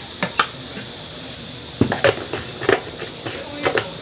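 Short, sharp knocks and clicks, about seven of them, from a plastic feeding bottle and a bottle of water being handled and set down on a table, over a steady hiss.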